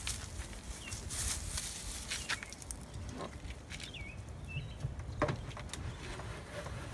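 A dog moving through leafy ground cover, the leaves rustling in scattered short crackles as it steps and sniffs. A few short bird chirps come about four seconds in.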